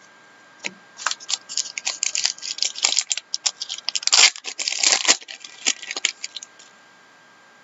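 Trading cards and their packaging being handled: a quick run of crinkling, tearing and clicking sounds that stops near the end.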